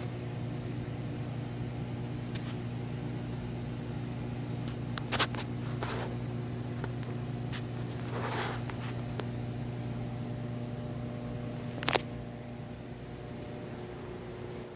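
Steady low electrical hum of a reef aquarium's pumps and filtration running, with a few short clicks now and then.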